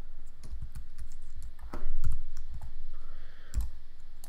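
Computer keyboard keys being pressed: irregular clicks and taps, with a louder thump about two seconds in.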